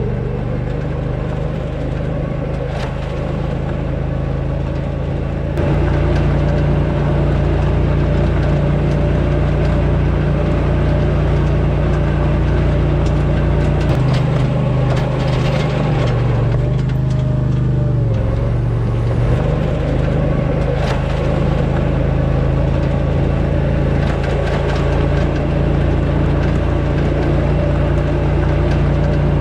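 Struck Magnatrac 7000 mini-dozer's engine running steadily while the machine drags logs, getting louder about six seconds in. Its pitch dips and recovers briefly around the middle.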